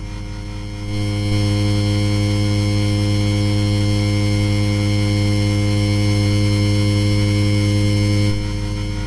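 Ceiling fan motor humming with a steady electrical buzz. It gets louder about a second in and drops back a little near the end.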